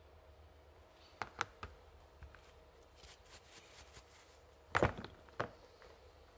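Hand-handling noises of small metal parts and a cloth: a few sharp clicks a little after a second in, some faint ticks, then a louder knock about five seconds in followed by one more click.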